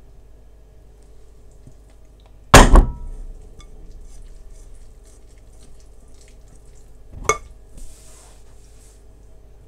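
Dishes and utensils clattering: a loud double clank about two and a half seconds in with a short ring after it, then a single sharp knock later on, followed by a brief hiss.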